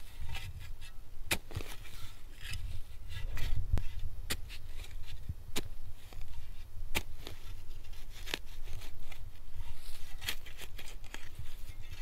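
Small hand spade digging into forest soil: the blade cuts and scrapes into the earth, with irregular sharp ticks and scrapes as soil is loosened and lifted out.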